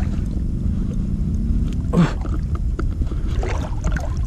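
Water sloshing and lapping as someone wades waist-deep through a river, over a steady low rumble, with a louder splash about two seconds in.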